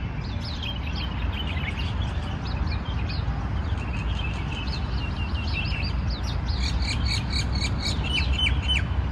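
Several small birds chirping, with many short, quick downward-sliding calls that come thicker and busier in the second half, over a steady low rumble.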